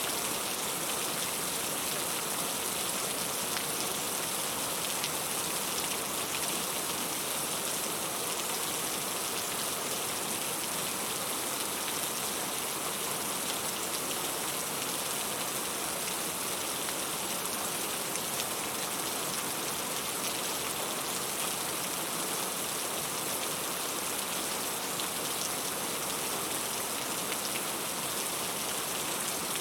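Steady rain falling, an even hiss with a fine patter of drops that holds constant throughout.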